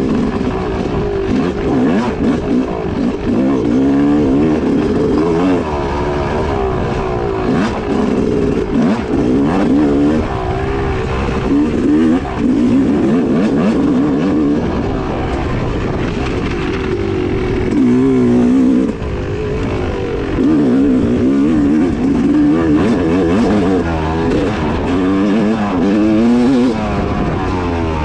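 2016 Yamaha YZ250X two-stroke single-cylinder dirt bike engine being ridden hard off-road, its revs rising and falling constantly with throttle and gear changes.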